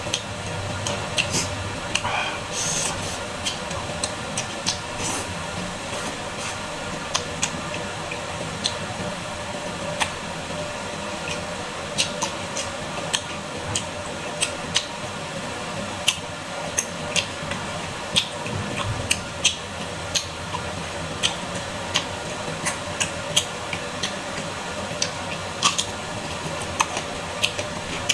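Close-miked eating of squid salad: wet, squishy chewing with frequent sharp mouth clicks and smacks, over a faint steady hum.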